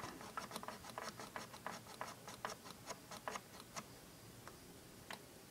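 Plastic set buttons on a 1993 GE 7-4612B digital clock radio clicking quickly under a finger, several small clicks a second, as the clock time is stepped forward; the clicks thin out after about four seconds, with one more near the end.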